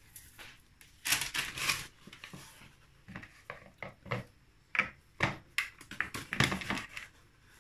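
Hands pulling and working a lump of yeast dough in a plastic mixing bowl: irregular rustling, scraping and soft knocks against the bowl, loudest about a second in and again near the end.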